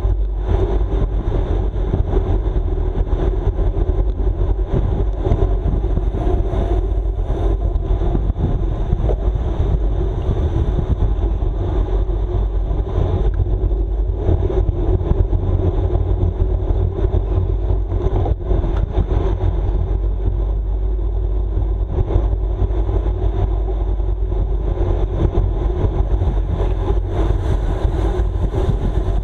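Steady wind rush and road noise from a road bike ridden at race speed, with a heavy low rumble of wind buffeting the microphone.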